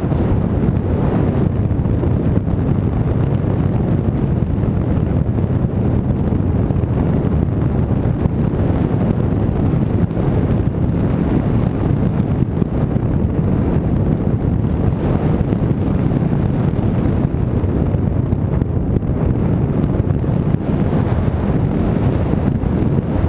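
Steady, loud wind buffeting a microphone, typical of a camera carried on a flying RC model.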